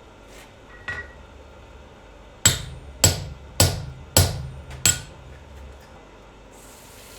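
Hammer striking hot steel of a nail header being forge-welded: two light taps, then five hard blows about 0.6 s apart, each with a short metallic ring. Near the end a steady hiss begins as the hot steel is quenched in water.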